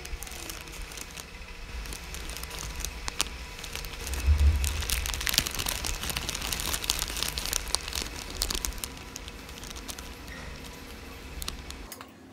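Crinkling and crackling of small plastic bleach-cream sachets being handled, with many scattered clicks. A low bump about four seconds in is the loudest moment.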